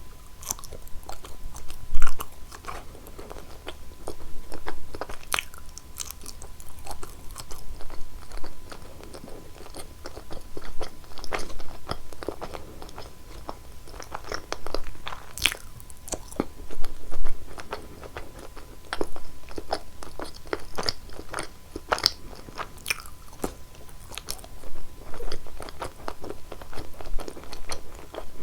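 Close-miked eating sounds of a person biting into and chewing cheese: repeated crisp crunches and mouth clicks in clusters, with a sharp loud bite about two seconds in.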